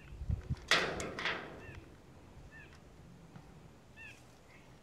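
Dull knocks and two short scraping rushes about a second in as a man climbs down a steel ladder on a water tank. A small bird then chirps a few times in the background.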